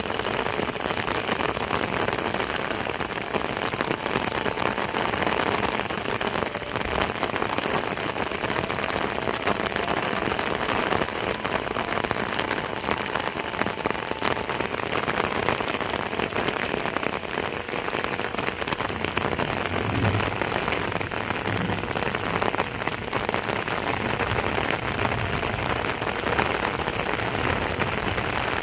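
Heavy rain falling steadily: an even, dense hiss of countless drops striking the ground and vegetation.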